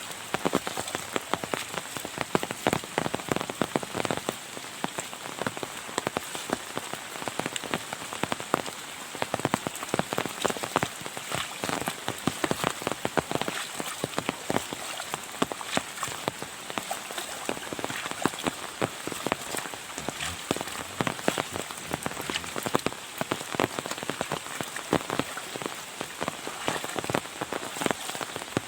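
Heavy rain falling steadily, with a dense patter of sharp raindrop hits close by.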